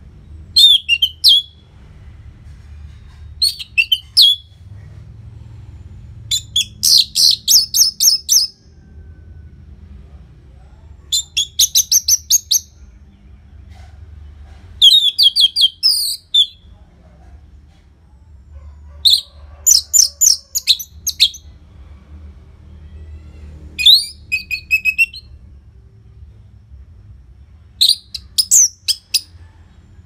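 Orange-headed thrush singing loudly: about eight rapid phrases of high, quick-changing chirping notes, each one to two seconds long, with pauses of a few seconds between them.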